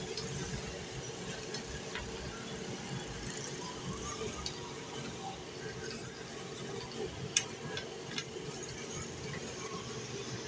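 Screwdriver working on the screws of a receiver's power supply board as the board is taken out: a few short sharp clicks, the loudest about seven seconds in, over a steady background noise.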